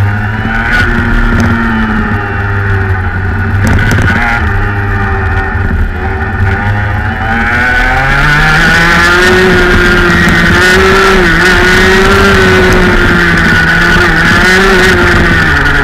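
Rotax Max 125cc two-stroke kart engine heard onboard, its revs wavering and dipping through the bends, then climbing about eight seconds in and held high with brief small dips.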